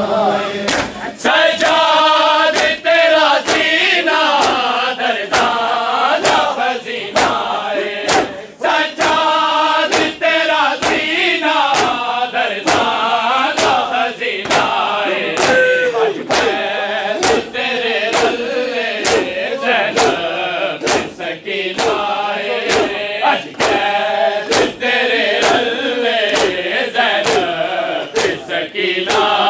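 Men chanting a mourning noha in chorus while beating their chests in unison (matam), the sharp slaps landing about three every two seconds.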